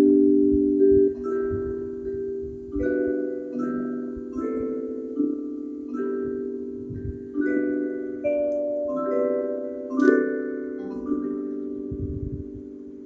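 Church bells ringing for noon: several bells of different pitches struck one after another, about one strike a second, each tone ringing on and overlapping the next.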